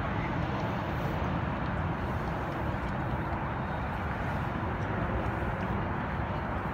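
Steady, even rumble of road traffic on an elevated highway, with no distinct events standing out.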